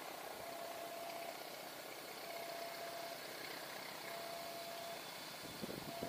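Level-crossing warning alarm sounding one steady electronic tone about a second long, repeating roughly every two seconds. Under it is the faint low hum of the Gajah Wong train's diesel locomotive approaching, with a few low thumps near the end.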